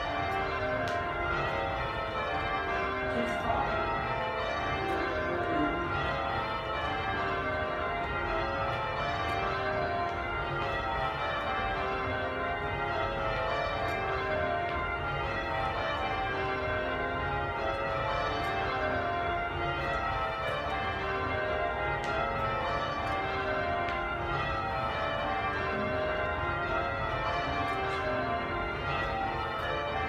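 A ring of Taylor-cast church bells at Buckfast Abbey being rung in changes: a steady, unbroken stream of overlapping bell strokes, heard from the ringing room below the bells.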